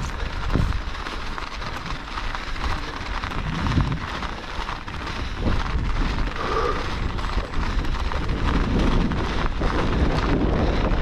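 Mountain bike riding down a hard-packed snow trail: wind buffeting the microphone, knobby tyres crunching over the snow and the bike rattling, growing a little louder in the second half.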